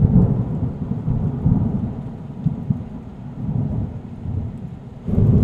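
Thunder rumbling over rain: a deep rumble that starts suddenly, fades, and swells again about five seconds in.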